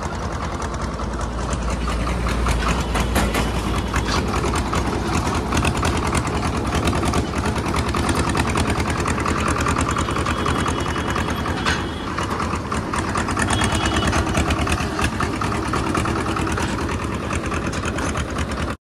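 Tractor's diesel engine running steadily under way, a fast even chugging heard from the driver's seat while it pulls a loaded trolley.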